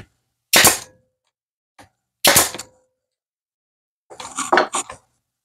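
Pneumatic brad nailer firing twice into wood, two sharp shots about a second and a half apart, driving 18-gauge nails. A short clatter follows near the end.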